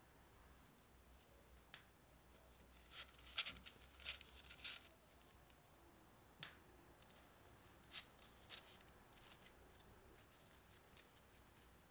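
Faint crackles of parchment paper and light taps as wedges of scone dough are set into a paper-lined air fryer basket: a quick cluster a few seconds in, then a few single crackles.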